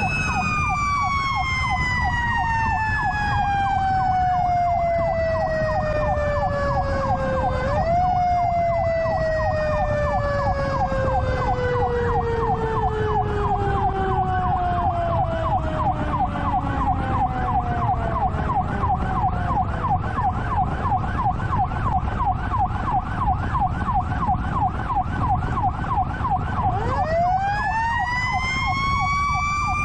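Fire apparatus sirens on an emergency response: a wailing siren falls slowly in pitch, is pushed briefly back up about eight seconds in, then winds down again. Meanwhile a second siren yelps in quick rising sweeps, a few a second, and near the end the wail spins back up in a rising tone. The truck's engine and road noise rumble underneath.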